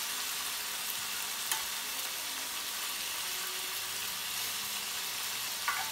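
Chicken thighs sizzling steadily as they brown in hot coconut oil in a frying pan, with a few light clicks as the tongs turn the pieces.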